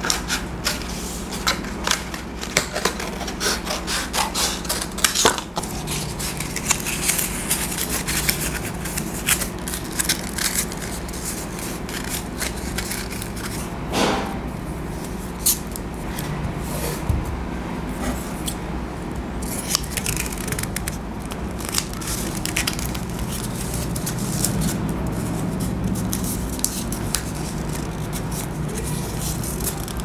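Close-up paper handling: a paper strip being scraped and creased with a metal edge, then rolled and rubbed, with masking tape being handled, making many small scratches, rubs and crinkles over a steady low hum.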